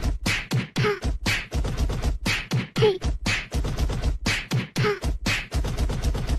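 Beatboxing: a quick, steady run of mouth-made drum hits, about three to four a second, with a short falling vocal sound every couple of seconds.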